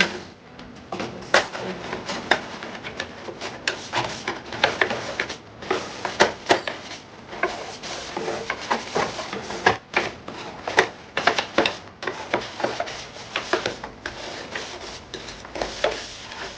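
Kitchen cleaning and tidying: a busy, irregular run of clicks and knocks from things being handled and set down, with rubbing between them.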